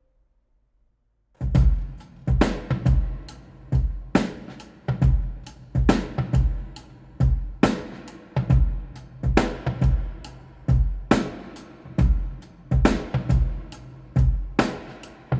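Drum-kit intro of a recorded song playing back: bass drum and snare hits with cymbals in a steady beat. The beat comes in suddenly after a second or so of silence.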